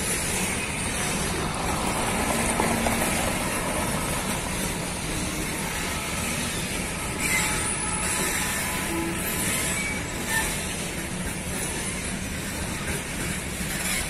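Loaded freight train's boxcars rolling past at close range: a steady rumble and rattle of steel wheels on the rails and the cars clanking over the track.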